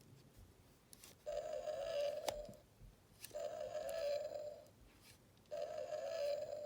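Electronic roar from a The Lost World: Jurassic Park Chasmosaurus toy's sound chip, played three times through its small speaker: each a thin, buzzy call of a little over a second, with short pauses between. A very weak dinosaur sound effect.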